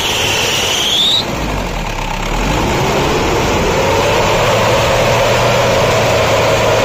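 Mahindra Bolero engine revved with the headlights on to load the freshly tightened alternator belt, as a test for belt noise. A high whine dips and rises in the first second. From about two and a half seconds in the engine climbs, holds at high revs and begins to drop near the end.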